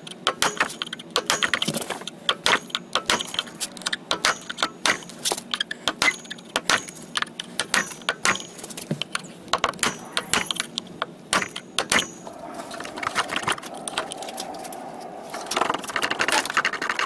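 Steel tip of a flathead screwdriver struck repeatedly against the steel push-on retaining ring on a lawn mower wheel's axle: sharp metallic clinks, about two to three a second, some with a brief ring, spreading the ring's teeth so it loosens. After about twelve seconds the striking stops and gives way to a softer rubbing and scraping as the wheel is worked off the axle.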